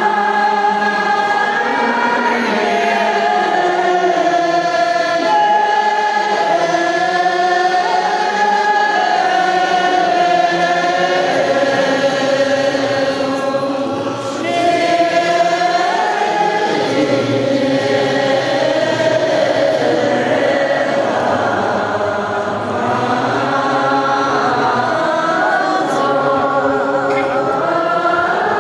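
A large crowd of men and women chanting the mani mantra together in a slow, melodic unison, the voices held on long tones with two brief dips partway through.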